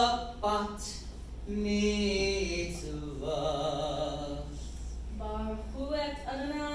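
A man's solo voice chanting a Hebrew prayer into a microphone, amplified in a hall, with long held notes that waver in pitch and short breaks between phrases.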